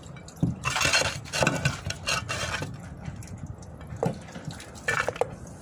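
Food being handled around a large metal cooking pot: a long stretch of rustling and scraping early on, then a few light knocks near the end.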